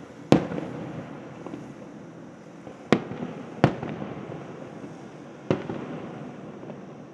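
Aerial firework shells bursting: four sharp booms, about half a second, three, three and a half, and five and a half seconds in, each trailing off in an echo.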